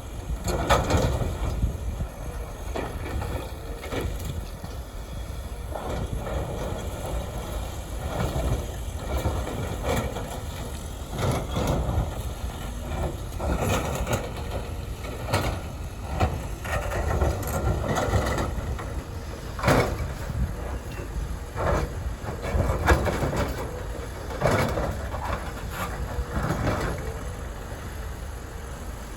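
CAT 330F excavator's diesel engine running under load, with irregular clattering and knocks of aggregate being scooped and dropped into a dump truck bed.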